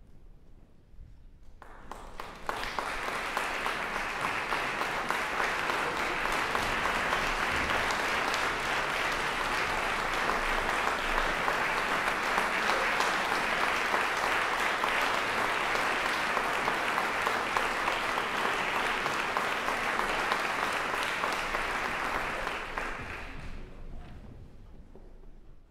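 Audience applauding. The applause breaks out about two seconds in, holds steady, and dies away near the end.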